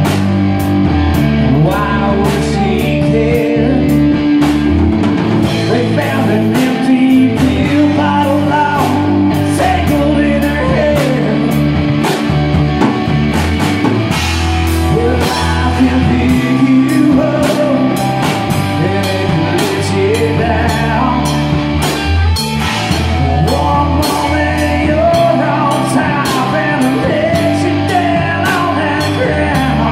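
A rock band playing: drum kit with a steady beat of cymbal and drum strokes, bass and guitar, with singing over it.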